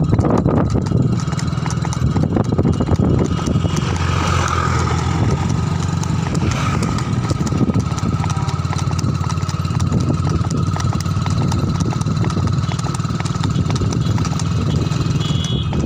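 Engine of a moving motor vehicle running steadily at road speed, about 30 km/h.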